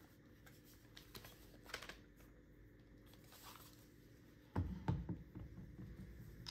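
Makita 6347D cordless drill being handled and set down on a table: faint plastic clicks and rustles, then a few dull thuds about four and a half seconds in as it is put down.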